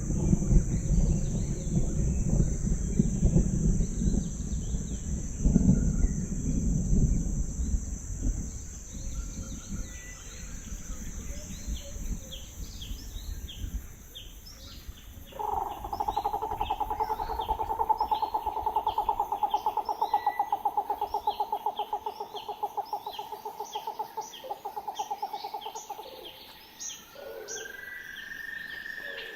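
Tropical rainforest ambience: a low rumble at first, under a steady high insect drone. Scattered short bird chirps follow, and from about halfway a long, rapidly pulsing trill runs for about ten seconds before stopping.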